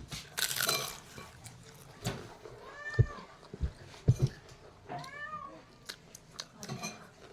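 A cat meowing twice, two short calls that rise and fall, with a few sharp clicks or knocks between them.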